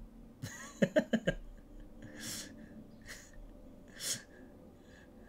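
A man laughing: a quick run of four or five short 'ha' bursts about half a second in, then two breathy exhales of laughter, one near the middle and one near the end.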